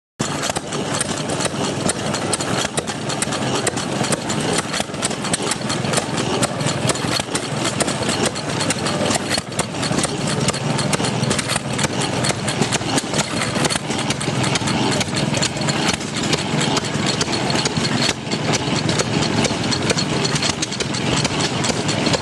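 Small antique stationary gas engine running steadily, driving a water pump, with a fast, even clatter.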